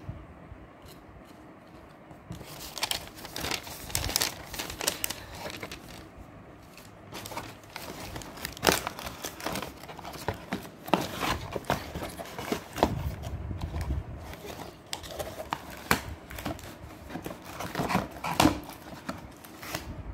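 Paper inserts and cardboard packaging rustling and crinkling as they are handled and unpacked, with irregular crackles and light taps.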